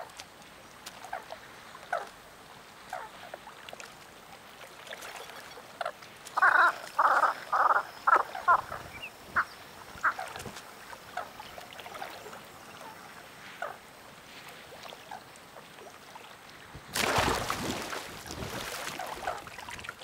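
Marsh ambience with scattered short animal calls, and a quick run of five or six loud calls about six to nine seconds in. Near the end a louder, even rushing noise comes in.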